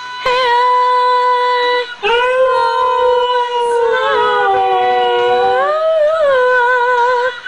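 A young Siberian husky howling long, drawn-out notes along with a woman singing: a short held note, then a longer one that slowly falls and rises in pitch and wavers near the end.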